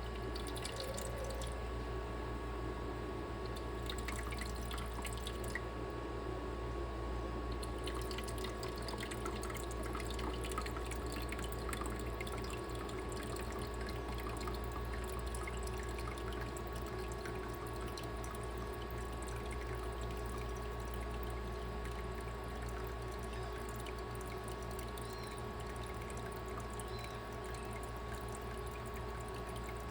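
Igloo countertop ice maker running with its newly replaced water pump working: water trickling and dripping inside the machine over a steady hum.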